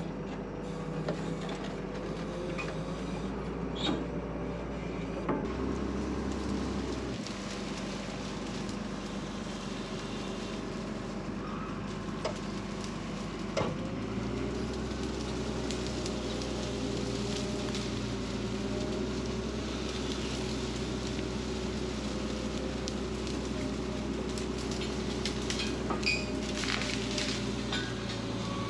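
Case 621C wheel loader's diesel engine running steadily, its note changing about five seconds in and again about halfway through, with scattered sharp cracks and crackling of brush and branches against the machine.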